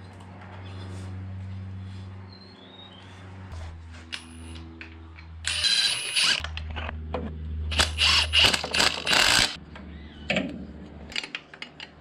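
A power tool cutting through a metal bracket on an engine mount, in two loud bursts: a short one about six seconds in and a longer one at about eight to nine seconds, with smaller clicks and scrapes of metal between them. A low steady hum runs underneath and changes abruptly several times.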